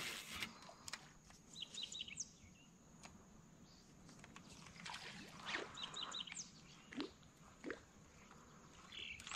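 Faint bird chirps: a quick run of short high notes about two seconds in and again about six seconds in, over quiet outdoor ambience with a few soft knocks.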